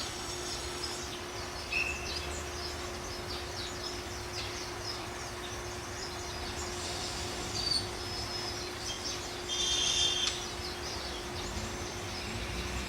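Small birds chirping in many short, high calls over a steady low hum and background noise, with a low rumble starting to build near the end.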